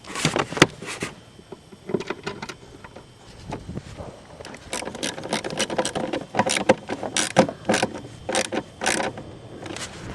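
Hand work on interior trim under a car's dashboard: irregular clicks, rattles and scraping of plastic parts and tools. The sounds come thicker in the second half, as sharp ticks about every half second.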